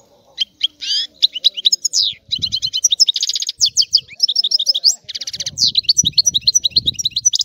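European goldfinch singing a fast, continuous twittering song of trills and quick chattering notes, starting about half a second in and stopping abruptly right at the end.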